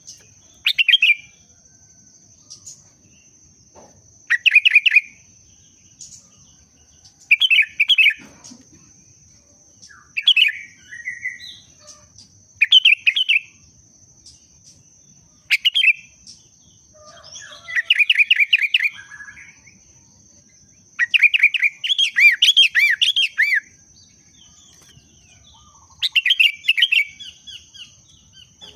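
Sooty-headed bulbul singing: short, rapid phrases repeated every two to three seconds, with longer phrases in the second half. A faint steady high whine runs behind the song.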